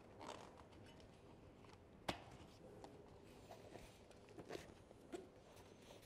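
Faint handling noises of a knobby mountain bike tire being pushed into its rim by hand, with a single sharp click about two seconds in.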